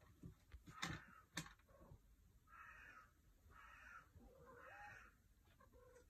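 A crow outside cawing three times in a row, faint and harsh, each call about half a second long. About a second in there are two sharp clicks, half a second apart, louder than the calls.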